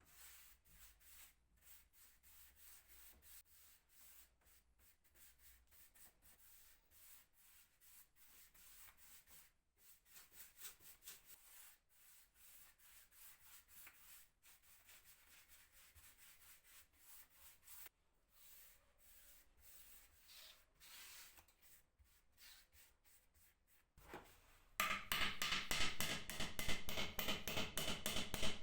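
Faint, rhythmic back-and-forth rubbing on wood, like hand sanding of the dresser's surface. Near the end a much louder rhythmic sound with steady tones cuts in.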